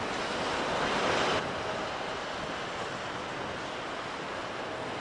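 Strong wind buffeting the microphone over choppy sea and waves, a steady rushing noise with a low rumble. It is louder for the first second and a half, then drops suddenly to a steady level.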